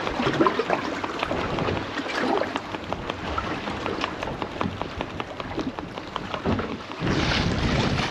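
Sea water splashing and lapping against the hull of a small fishing boat in irregular spatters. About seven seconds in, wind starts buffeting the microphone with a low rumble.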